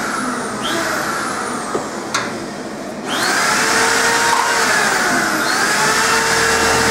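Jewellery laser welding machine running: a steady whirring noise with a faint falling whine, which comes on in surges and holds louder from about three seconds in. A single sharp click sounds about two seconds in.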